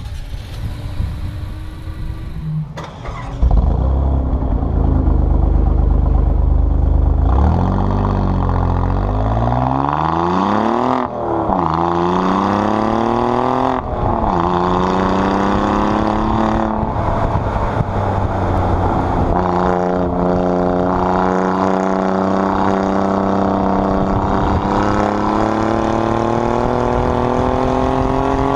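Alfa Romeo Giulia Quadrifoglio's 2.9-litre twin-turbo V6 exhaust. A heavy low rumble gives way to hard acceleration, the revs climbing and dropping sharply at two upshifts, then holding steady.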